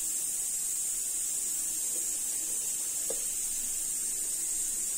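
Steady high-pitched hiss of background room tone, with no clear cooking sound standing out.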